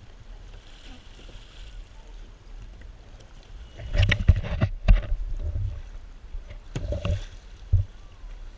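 Water splashing and slapping against plastic kayak hulls as a capsized whitewater kayaker pulls herself upright on another kayak's bow in a bow rescue, with a burst of splashes about four seconds in and a few more near the end.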